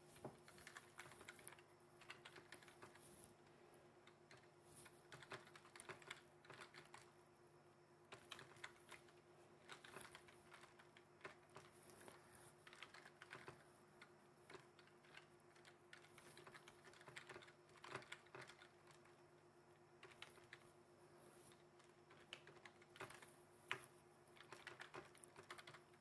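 Quiet typing on a computer keyboard: quick runs of key clicks with short pauses between them, as text is entered into form fields.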